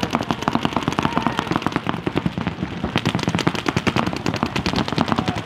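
Paintball markers firing fast strings of shots, several guns overlapping so the pops come many times a second without a break.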